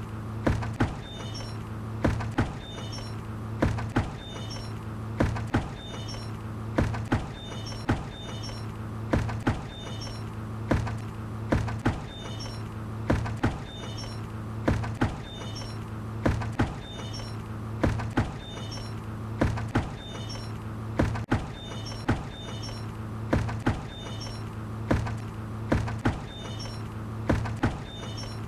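A bucket knocking over and over in an uneven repeating pattern, a little more than one knock a second, with short high squeaks between knocks, over a steady low hum.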